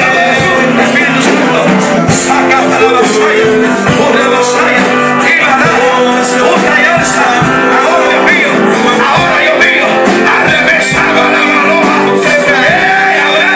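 Live worship band playing loudly: strummed acoustic guitar and drums with steady cymbal strokes, with a woman singing over them.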